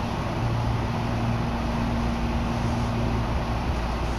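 Tobu Urban Park Line commuter train running between stations, heard from inside the carriage: a steady running rumble with a steady low hum under it.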